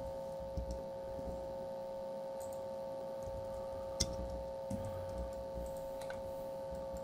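Steady electrical hum with a handful of short computer-mouse clicks scattered through it.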